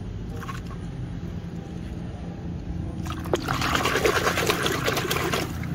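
A hand swishing and splashing through a basin of muddy, foamy water while washing plastic toys. The splashing starts about three seconds in and stops near the end.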